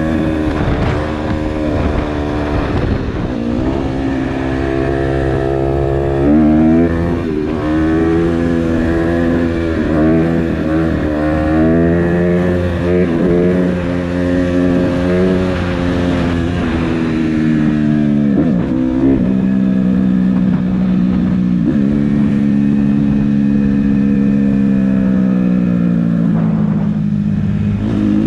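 Honda CRF150R dirt bike's four-stroke single-cylinder engine running hard on the road, its pitch climbing and dropping again and again as the throttle is opened and eased, with a longer steadier stretch in the second half that slowly falls.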